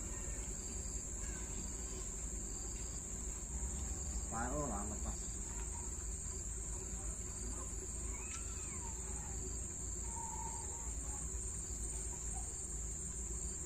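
Insects chirring in a steady, high-pitched drone, with a few brief faint calls over it.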